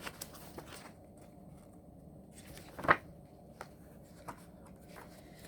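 Quiet room with a few faint, short clicks and one sharper click about three seconds in, small handling noises.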